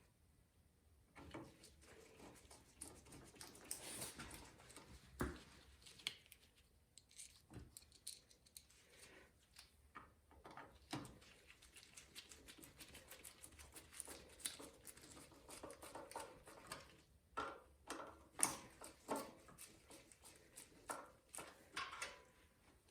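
Faint, scattered clicks and light knocks of small parts being handled and fitted as a snowblower engine is put back together.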